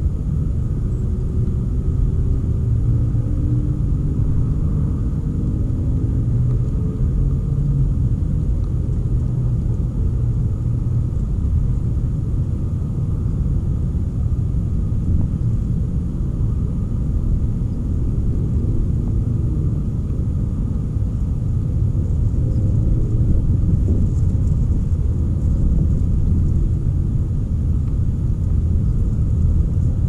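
Steady low outdoor rumble with a faint wavering engine-like drone in the first several seconds.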